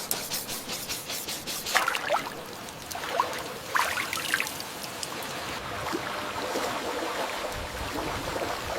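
Water trickling and splashing, with a few brief sharper splashes between about two and four and a half seconds in and a low rumble joining near the end.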